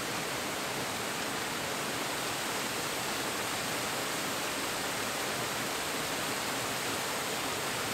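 Small waterfall splashing over rock ledges into a pool: a steady, even rush of falling water.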